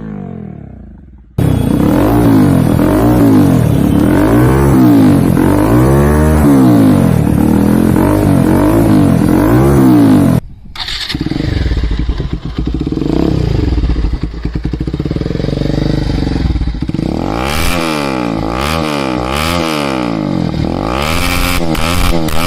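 Motorcycle engines with modified exhausts being revved, in two clips that meet at a sudden cut. Each clip is a series of throttle blips that rise and fall in pitch. In the second clip, popping crackles join the revs near the end.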